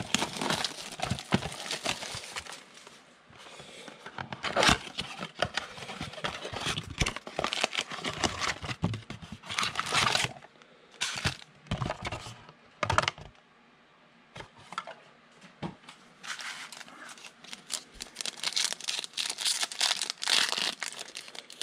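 Packs of 2020 Panini Absolute football cards being opened by hand: wrappers tearing and crinkling in irregular bursts of rustling and clicks, with a short lull about two-thirds of the way through.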